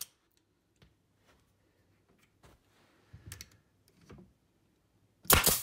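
Pneumatic finish nailer fired once near the end, a sharp bang with a short hiss, driving a finishing nail into a wooden spacer block. Before it come faint clicks and knocks as the nailer is set against the wood.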